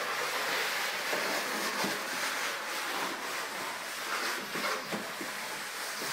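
Plastic wastebasket being pushed across a hardwood floor, a steady scraping slide with a few light knocks.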